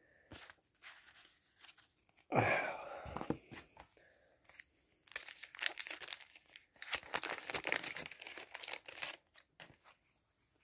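Waxed-paper wrapper of a 1989 Fleer baseball card wax pack being handled and torn open: a short burst of crinkling about two seconds in, then a longer stretch of tearing and crinkling from about five to nine seconds in.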